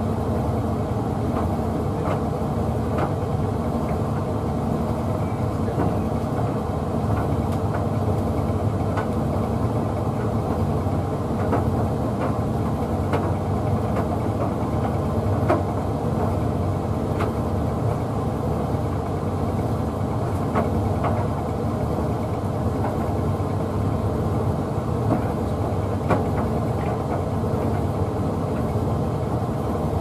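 Hoover Visiontech Infinity VTV581NC tumble dryer running a Rapid 40 drying program. The motor and fan give a steady hum as the drum turns a bathmat, with occasional light taps at irregular moments.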